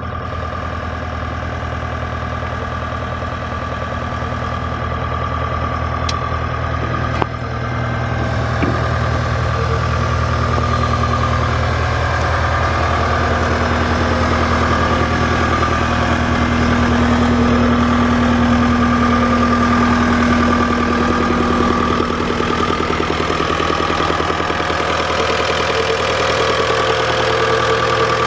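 The diesel engine of a CAT 226D skid steer idling steadily, with one sharp click about seven seconds in, after which it runs a little louder.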